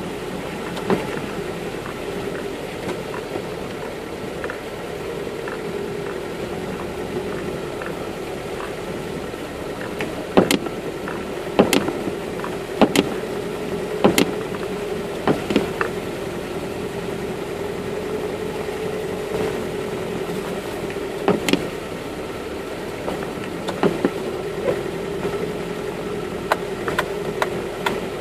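Off-road 4x4 engine running steadily at low speed, heard from inside the cabin, as the vehicle crawls along a rutted muddy track. Sharp knocks and rattles come in clusters from about a third of the way in, as the body jolts over the ruts.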